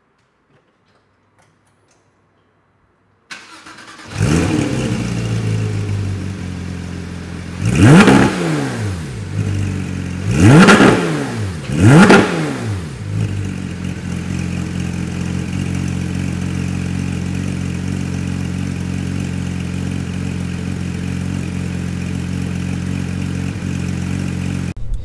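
Porsche 991.1 GT3's naturally aspirated flat-six, fitted with a GMG muffler-delete exhaust, starting up about three seconds in and settling to a fast idle. It is then revved sharply three times, each rev rising and falling quickly, before dropping back to a steady idle.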